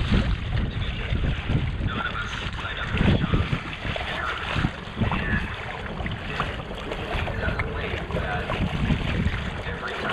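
Strong wind buffeting the microphone in a low, uneven rumble, over choppy water splashing around a fishing kayak.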